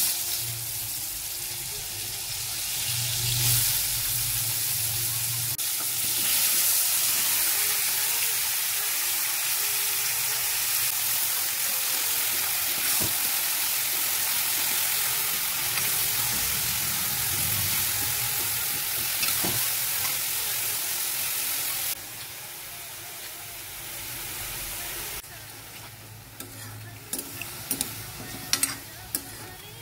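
Button mushrooms dropped into hot oil in a metal wok, sizzling loudly at once. The sizzle dies down in two steps about two-thirds of the way through. Near the end a spatula clicks against the pan as the mushrooms are stirred.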